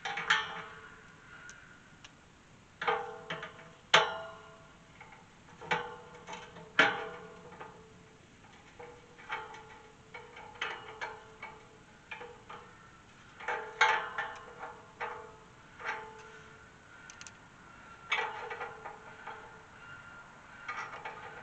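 Irregular metallic clinks, each ringing briefly, as steel hinge hardware (bracket, nut and hinge pin) is worked by hand against a galvanized steel tube farm gate.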